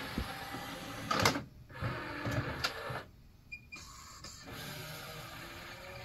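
Marantz LaserDisc player's tray motor drawing a 12-inch disc in, whirring with a few sharp clicks as the mechanism clamps the disc. About four and a half seconds in, the disc starts spinning up: a steady hum with a faint whine that slowly rises.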